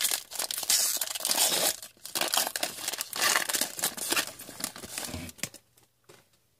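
A foil trading-card pack wrapper being torn open and crinkled by hand, a dense crackling that stops about five and a half seconds in.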